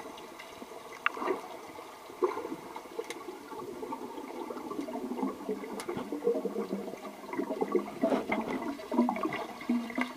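Muffled bubbling and gurgling of pool water heard underwater, busier in the second half, with a few sharp clicks.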